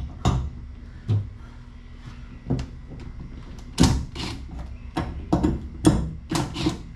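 Irregular knocks and clunks from a hard plastic (ABS) truck-bed tool box being shifted and repositioned against the truck bed. The hits are scattered at first, with a louder one about halfway, then come close together near the end.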